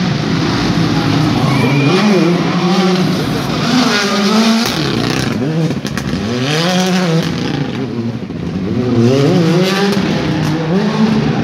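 Rally car engine revving hard and dropping back again and again as it is driven through the tight turns of a tarmac stage; the pitch climbs and falls about five times.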